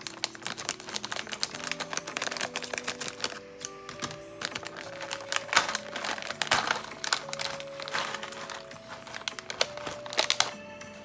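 Clear plastic snack bag crinkling and crackling as it is opened and handled, over background music with steady sustained notes.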